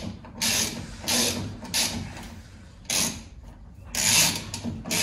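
Hand ratchet with a socket extension clicking in about six short bursts, one per back-stroke of the handle, as an M6 lock bolt is tightened.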